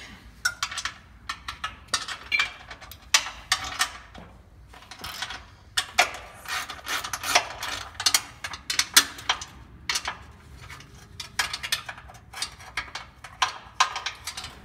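A wrench undoing the bolts that hold a steel hole-saw template to a truck frame: a run of irregular metallic clicks and clinks.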